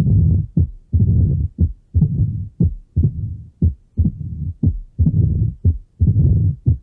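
Heart sounds with a murmur, about one beat a second: each beat is a long rushing sound lasting about half a second, ending in a short sharp sound.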